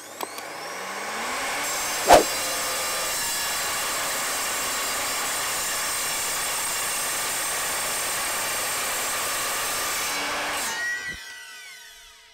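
Mitre saw cutting through a 20 mm aluminium rod. The motor spins up, then the blade runs steadily through the metal with a high metallic ringing, with one sharp knock about two seconds in. Near the end the motor is released and winds down, falling in pitch.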